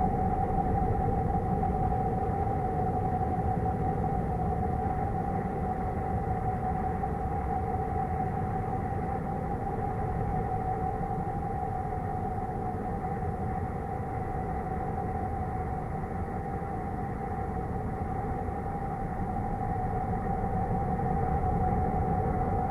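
Space-themed drone presented as the sound of Saturn: a constant mid-pitched hum over a dense low rumble, swelling slightly near the end.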